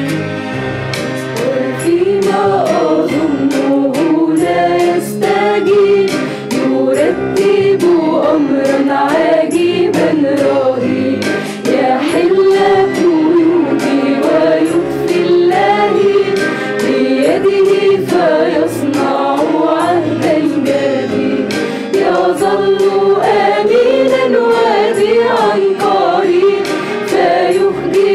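Mixed choir of women's and men's voices singing an Arabic Christian hymn.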